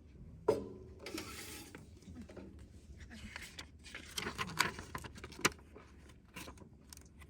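Small objects being handled by hand: rustling with scattered light clicks and knocks, and a sharp click about half a second in and another near five and a half seconds.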